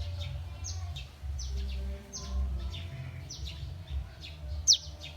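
Small birds chirping: short, high chirps that slide downward in pitch, repeated about twice a second, with one louder chirp near the end.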